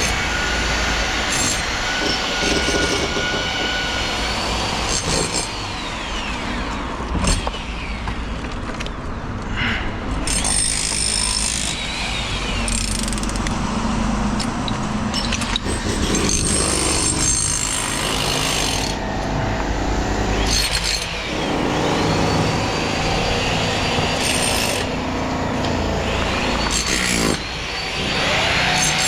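Construction site noise: machinery and engines running, with scattered knocks and clatter, and a whine that rises near the end.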